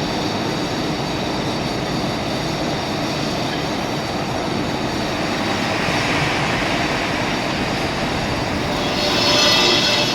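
Loud, steady machinery noise, with a high squealing whine rising briefly about nine seconds in.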